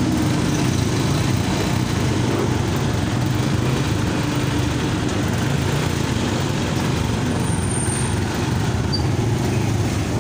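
Motorcycle engine idling steadily, running after sitting unused for months.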